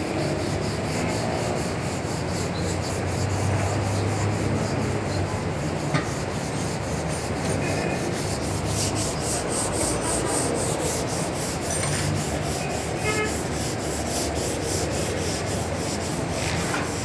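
Sandpaper rubbed by hand over a car's painted steel bonnet in quick, even back-and-forth strokes, scuffing the surface to prepare it for paint.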